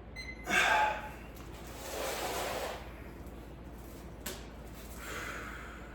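A man breathing hard from exertion after a set of cable rows: a loud, sharp breath about half a second in, then slower heavy exhales. A single click a little after four seconds.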